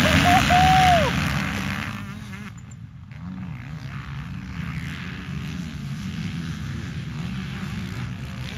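A pack of motocross bikes accelerating hard away from the start gate. The engines are loud in the first second or so, then fade within about two seconds to a steady, more distant drone of many engines rising and falling in pitch as the riders work around the track.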